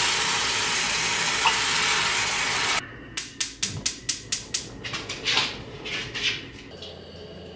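Water running from a kitchen faucet into a stainless steel pot, cutting off abruptly about three seconds in. Then a gas stove's igniter clicks rapidly, about six clicks a second, while a burner knob is turned and the burners light, followed by a few scattered clicks.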